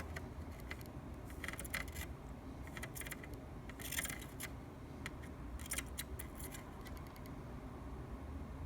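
Scattered light clicks and taps of small metal tools being handled on a workbench during soldering work, over a steady low hum.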